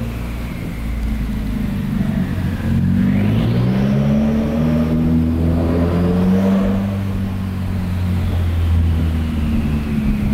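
Subaru WRX's turbocharged flat-four running through a Tomei Expreme titanium single-exit exhaust while driving slowly, its deep exhaust note rising and falling in pitch as the throttle is opened and eased off.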